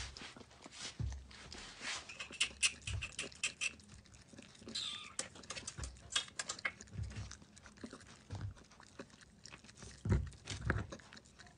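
Corgi puppy licking and eating from a small plastic bowl fixed to a cabinet door: a quick, irregular run of small wet tongue clicks and smacks, with soft low knocks of the bowl against the door now and then.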